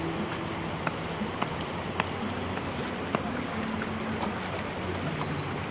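Steady rush of a flowing river, with water splashing and sloshing as wet laundry is swished and rinsed by hand at the bank, and a few sharp light taps scattered through. A faint low drone runs underneath.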